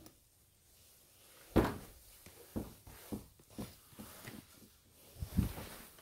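A few separate knocks and thumps in a small room: one sharper knock about one and a half seconds in, then several lighter ones, and a last small cluster near the end.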